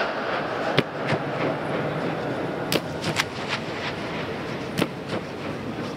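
Several sharp claps ringing out and echoing under the vast stone dome of Gol Gumbaz, over a steady din of reverberating crowd noise.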